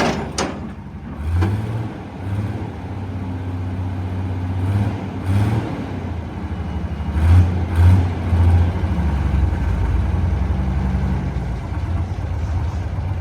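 Hitachi EX160WD wheeled excavator's diesel engine running, its speed rising and falling, loudest about seven to eight seconds in. A few sharp knocks at the start.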